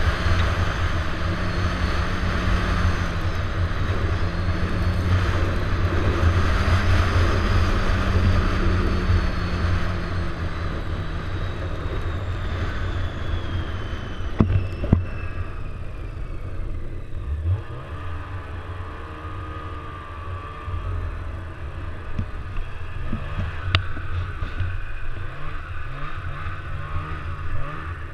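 Snowmobile engine and track running hard with a high whine, heard from on board the sled. About halfway through the whine falls in pitch and the sound drops as the throttle eases off, and the sled runs on slower and quieter, with a few sharp knocks over bumps.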